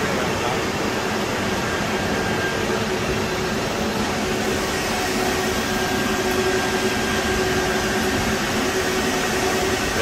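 Cooling fans of a rack-mounted Cisco router chassis running steadily: a constant rush of air with a faint steady hum in it.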